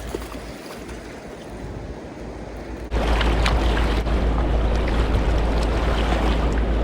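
Steady rushing noise of wind and river water with a deep rumble of wind on the microphone. About three seconds in it jumps suddenly much louder and stays there.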